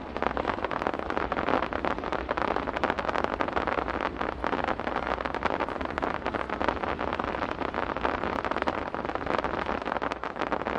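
Starmine fireworks crackling: a dense, continuous rush of many small rapid pops from clusters of glittering stars bursting together. It starts suddenly and keeps going.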